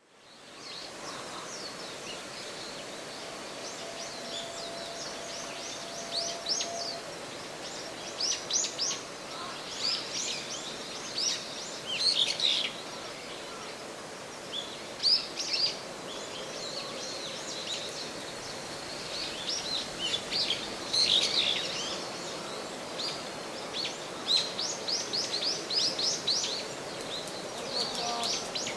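Small birds chirping in repeated quick runs of short, falling chirps over a steady outdoor hiss. This is forest-park ambience, layered over the on-site sound.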